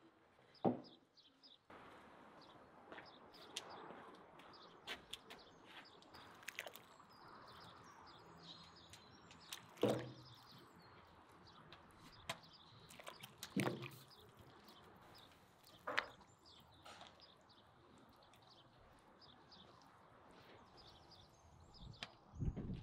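Quiet outdoor ambience with birds chirping, broken by a few sharp knocks and clunks, the loudest about ten seconds in.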